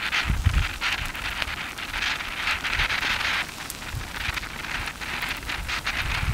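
Pahoehoe lava crackling as it advances, a dense run of tiny snaps and ticks from its cooling glassy crust, briefly quieter in the middle.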